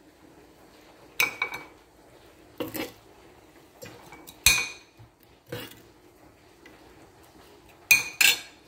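Kitchen dishes and utensils clinking and knocking: a series of separate sharp clinks, some with a short ring, as chopped onion is put away into a dish.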